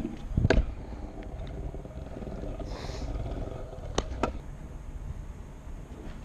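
Stunt scooter wheels rolling over paving tiles with a steady low rumble. A sharp clack comes about half a second in, and two quicker clacks come about four seconds in.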